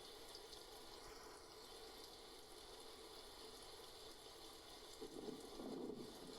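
Faint, steady hiss of falling rain, with a slight low swell near the end.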